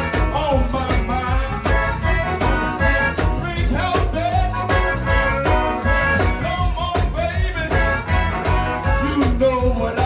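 Live zydeco band playing a steady dance beat, with drum kit, electric bass and the scraping of a rubboard (frottoir).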